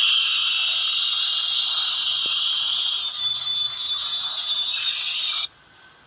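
A dense chorus of chirping and chattering from a large flock of small finches, mostly Gouldian finches. It cuts off suddenly about five and a half seconds in.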